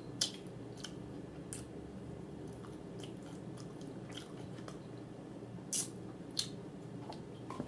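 Close-miked chewing and mouth smacking while eating fried chicken: scattered short crisp clicks and crunches, the loudest about six seconds in, over a low steady hum.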